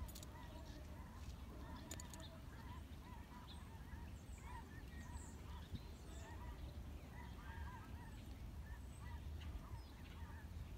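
Faint calls of waterfowl, many short calls scattered throughout, over a low rumble.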